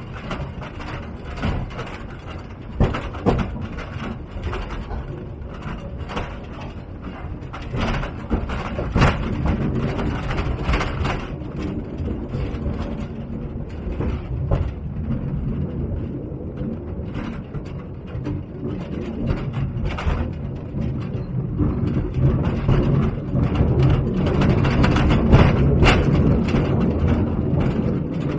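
Small mine trolley train running on narrow-gauge rails: irregular clattering and knocking of the wheels and cars over a low rumble. A steady low hum from the drive gets louder over the last several seconds.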